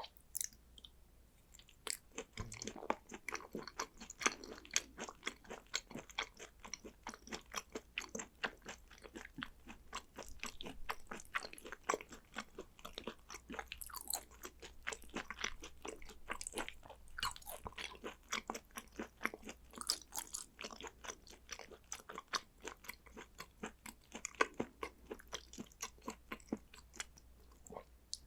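Close-miked chewing of raw Hanwoo beef and sea urchin roe: a steady run of short mouth clicks and smacks, several a second and irregular.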